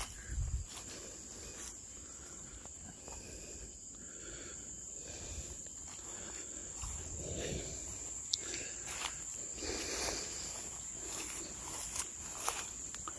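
A steady high-pitched insect chorus, with faint rustling and a couple of sharp clicks late on.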